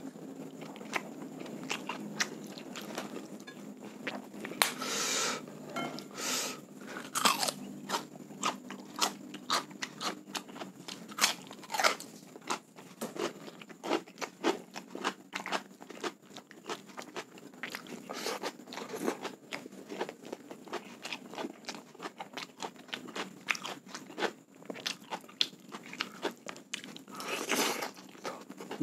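Close-up eating sounds: chewing with irregular crunches throughout, from a meal of soy-sauce chicken thigh, rice and raw cucumber eaten by hand.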